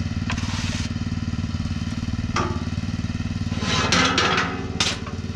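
Tractor engine idling steadily, holding the loading ramp up on its loader. Two short noisy bursts sound over it, one about half a second in and one about four seconds in.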